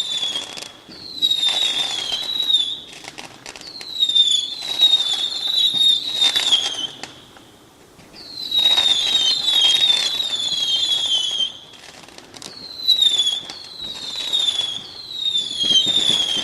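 Fireworks whistling and crackling: about six shrill whistles, each a second or two long and wavering slightly downward in pitch, come in bursts with rapid crackling pops between them.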